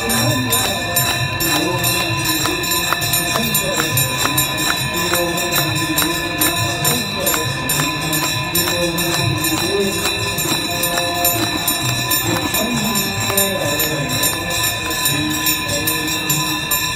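Hindu devotional aarti music: a sung chant over bells rung in a steady rhythm, about three strikes a second, with a continuous high ringing.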